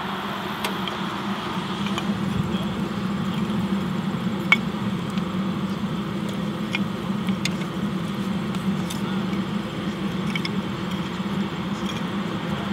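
Small wood-burning live steam locomotive being stoked: scattered sharp clicks and knocks of wood blocks against the open firebox, over a steady low hum and hiss.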